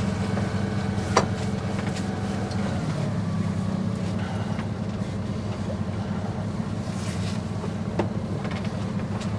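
Sailing yacht under way with a steady low drone, most likely its inboard engine running, over the rush of water along the hull. Two sharp clicks stand out, about a second in and near the end.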